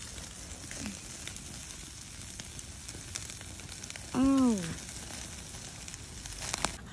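Meat sizzling on a wire grill over an open fire, with crackles and pops from the flames. About four seconds in, a short voice sound rises and falls in pitch over it.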